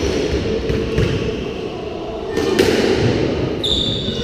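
Squash rally starting: sharp knocks of the ball off racket and court walls, beginning about two and a half seconds in, with a brief high squeak of a shoe on the wooden floor near the end.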